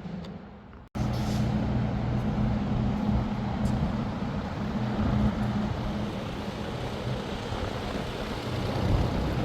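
Tractor engine running steadily, its note holding even. About a second in it breaks off abruptly and comes back louder.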